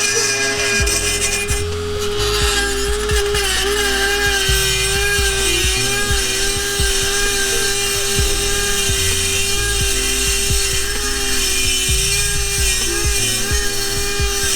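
Dremel 4000 rotary tool grinding down the cracked exhaust pipe end, its motor whining at a steady pitch that wavers slightly, over a gritty scraping of metal. The grinding is meant to stop the two cracked ends tapping together and rattling.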